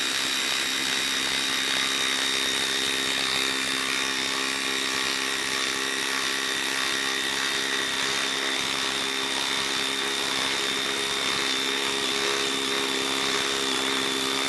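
DeWalt DCF887 brushless impact driver hammering steadily at an even pitch as it drives a 6-inch lag screw into a log. The long lag makes the tool work harder than a short one.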